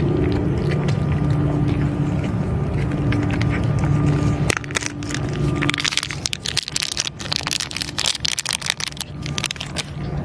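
A steady low mechanical hum for the first four seconds or so, then it stops abruptly. Cats and kittens chewing and crunching food from a metal dish follow, heard as rapid close clicks and crackles with scrapes of the dish.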